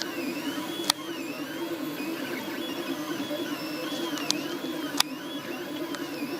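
HyperCube 3D printer's stepper motors whining as the print head moves, the pitch rising and falling in repeated arcs over a steady hum. Two sharp clicks come about a second in and again near the end.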